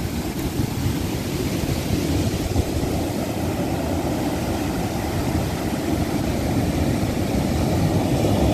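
Surf breaking on a beach, a steady rushing noise, with wind rumbling irregularly on the microphone.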